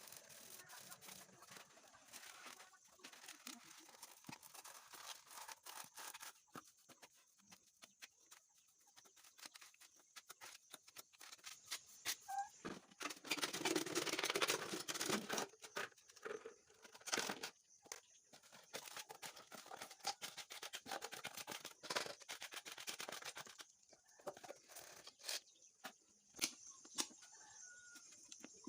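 Chickens clucking, with many scattered clicks and a louder rustling stretch about halfway through.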